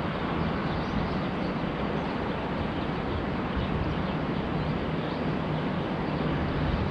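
Steady traffic noise from the elevated highway bridge: an even rumble with no distinct events.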